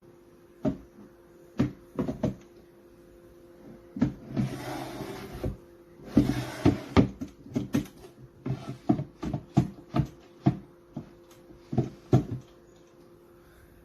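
Nightstand drawers being pulled open and pushed shut: a series of sharp wooden knocks, with two rough scraping slides, one about four seconds in and a shorter one about six seconds in.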